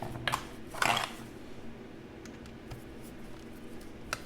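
A few light clicks and knocks of small parts being handled during reassembly of a portable bandsaw, the loudest a short rattle about a second in, over a low steady hum.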